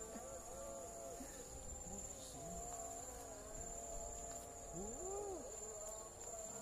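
Steady high-pitched trill of insects, with faint murmured voices now and then, loudest about five seconds in.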